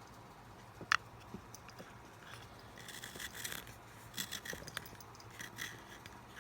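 Blackwing Long Point hand pencil sharpener shaving a wooden #2 pencil: a sharp click about a second in, then several short bursts of scratchy rasping as the blade cuts.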